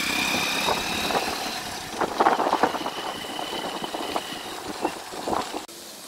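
A vehicle running along the road, a steady engine and road noise heard from on board, with a few short rattles about two seconds in. It cuts off shortly before the end.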